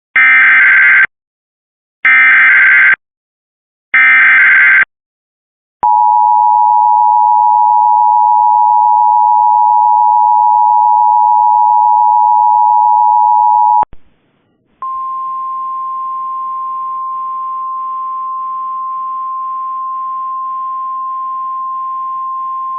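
Emergency Alert System alert tones: three loud one-second bursts of digital header data about a second apart, then the two-tone attention signal held steady for about eight seconds. After a short gap, a quieter single steady tone runs on until the voice message begins.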